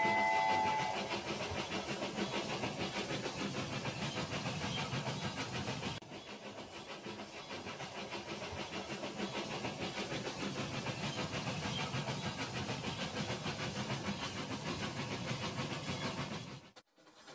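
Battery-powered toy trains running on plastic track: a steady noise of small motors and wheels with a fast, even rattle. In the first second a toy locomotive's electronic horn sounds a steady chord of a few tones, then stops.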